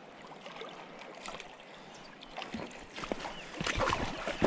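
Shallow river water running, with splashing that starts about three seconds in and grows louder toward the end as a hooked rainbow trout thrashes close to the bank.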